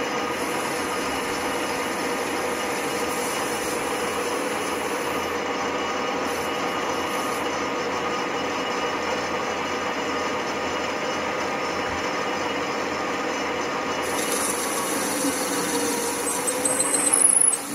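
Metal lathe running with the tool cutting a small metal workpiece: a steady motor hum under the noise of the cut, growing louder with a few sharp scrapes near the end.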